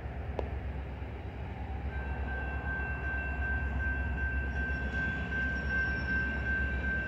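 Union Pacific diesel locomotive approaching, its low engine rumble growing gradually louder, with a steady high whine joining about two seconds in.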